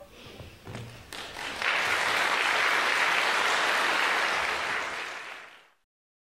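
Concert audience applauding after a solo classical guitar performance: a few scattered claps at first, swelling to full applause about a second and a half in, then fading out to silence near the end.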